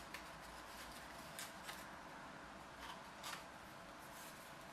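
A handful of short, faint clicks and rustles from hands handling small balsa parts and tools on a plastic-covered building board.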